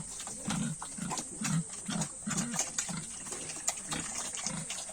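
Domestic pigs grunting while feeding: short low grunts about twice a second, with sharp clicks throughout.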